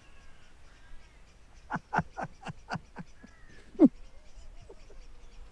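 An older man laughing heartily: a run of about eight short "ha"s, each falling in pitch, ending on a louder, longer one about four seconds in.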